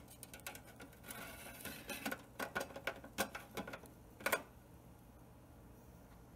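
Sheet-metal spirit burner tray of an antique Märklin toy steam traction engine being slid into its firebox: a run of light metallic scrapes and clicks, ending with a couple of sharp clicks about four seconds in.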